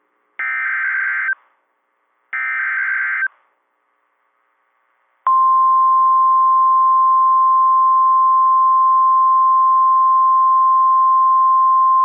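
NOAA Weather Radio emergency alert signalling: two roughly one-second bursts of SAME digital header data, the buzzing, warbling data tones, a second apart. After a two-second pause, the steady 1050 Hz Warning Alarm Tone starts abruptly over faint radio hiss; it announces that a new warning message is about to be read.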